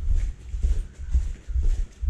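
Footsteps at a steady walking pace, about two a second, heard mostly as low thuds.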